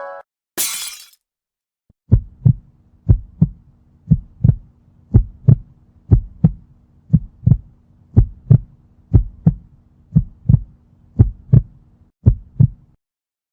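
Heartbeat sound effect: paired lub-dub thumps about once a second, eleven beats in all, over a faint steady hum, after a brief hiss-like swish near the start.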